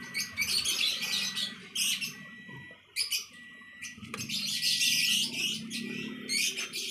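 Birds chirping in quick, irregular bursts of high chatter, one spell in the first second and a longer one from about four seconds in, over a faint steady high tone.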